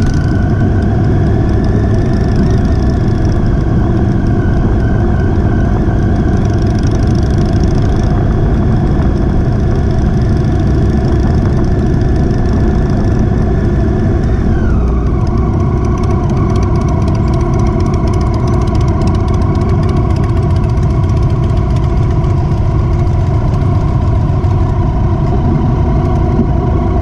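Motorcycle engine running steadily under way, with heavy wind rumble on the microphone. About halfway through, the engine note drops in pitch and then holds steady at the lower note.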